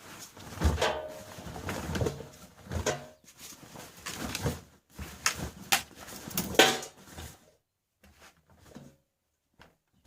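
Irregular knocks, clicks and scrapes from a Bauknecht washing machine being handled, with a short squeak about a second in; the handling stops after about seven seconds, leaving a few faint clicks.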